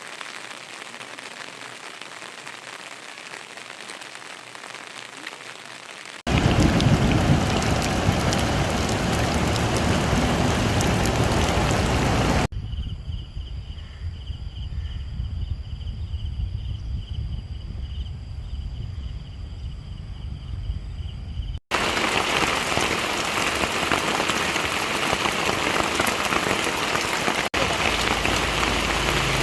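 Rain falling, in several abruptly joined stretches. A moderate hiss of rain becomes heavy, loud rain about six seconds in. A quieter stretch in the middle carries a steady high pulsing tone. Then heavy rain again.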